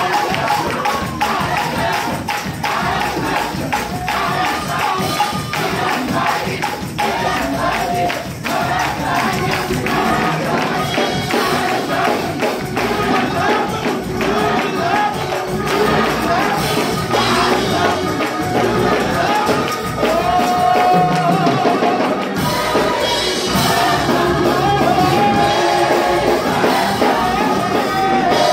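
Gospel choir singing live, backed by a drum kit with cymbals keeping a steady beat and frequent sharp percussion hits.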